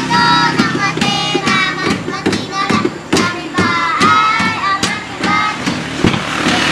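Children singing loudly, high voices sliding in pitch, with scattered sharp clicks among the singing.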